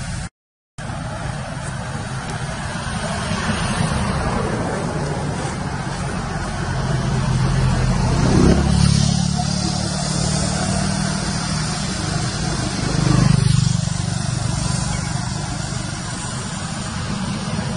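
Steady outdoor rumble, with two louder swells about halfway through and about three-quarters of the way through.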